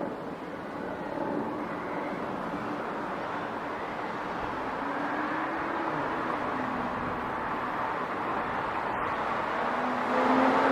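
City street traffic: a steady wash of road noise with engines passing, and one vehicle drawing close and getting louder near the end.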